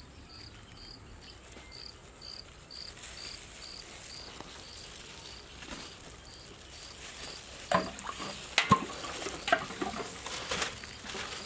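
A cricket chirping steadily, evenly spaced high chirps a little over two a second. In the second half, a few sharp knocks as the condensed-milk tins are handled over the pot.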